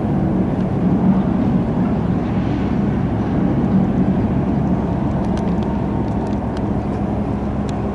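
Steady low mechanical rumble with a constant hum, with a few faint ticks in the second half.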